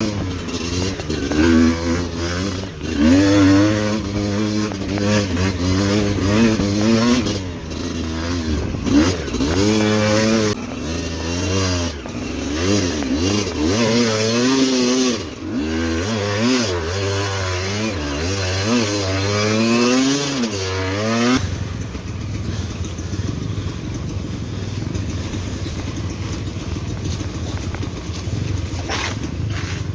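Motorcycle engine revving up and down over and over, its pitch rising and falling. About twenty seconds in it cuts abruptly to a steadier rushing noise.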